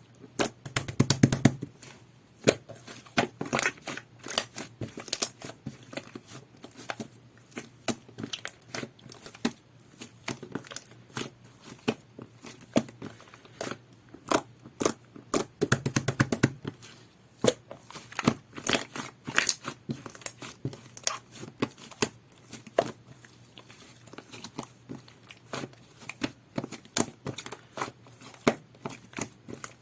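Jelly-textured slime being squished and worked by hand, giving a steady run of sticky pops and clicks, with two thicker bursts of squelching at about a second in and again near the middle.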